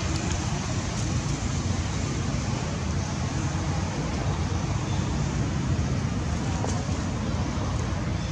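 Steady low rumble of outdoor background noise, even in level throughout, with a few faint ticks.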